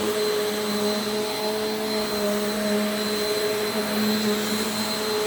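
Bissell PowerForce Compact upright vacuum running steadily over carpet: an even motor hum and rush of air, with a thin high whine.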